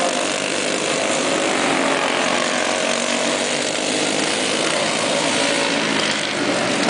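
A pack of racing karts with Briggs & Stratton Animal single-cylinder four-stroke engines running at speed around the track, a steady engine noise.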